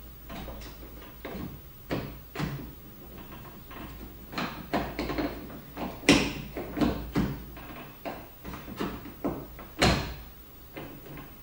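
Screwdriver and hands working the outside door handle of an Opel Astra to release it: a series of irregular clicks and knocks, the louder ones about six seconds in and near the end.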